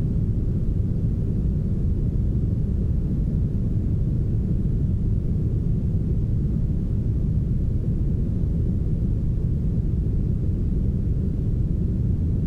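Soft, heavily smoothed brown noise: a steady, deep rush with little treble.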